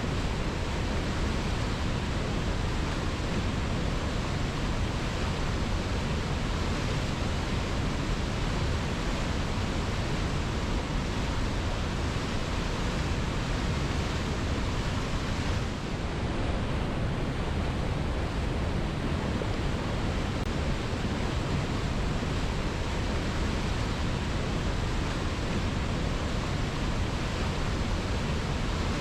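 Waterfall rushing steadily, a dense, even hiss and roar of falling water, with a brief dip in the high hiss about halfway through.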